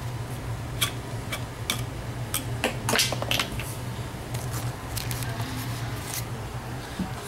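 Irregular small clicks and taps, about a dozen, from handling things, over a steady low hum.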